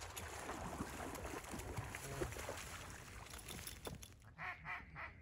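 Water sloshing and splashing among the duck decoys. Near the end comes a quick run of duck quacks, about five a second.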